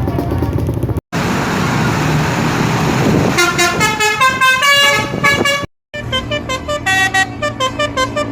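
Indonesian 'telolet' bus horn, a Basuri multi-trumpet horn, playing a fast tune of short pitched notes in quick succession. It is preceded by a couple of seconds of rushing noise and breaks off briefly before the tune resumes.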